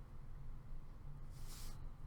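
A brief rustle of hockey trading cards and their packaging being handled, one short swish about a second and a half in, over a steady low hum.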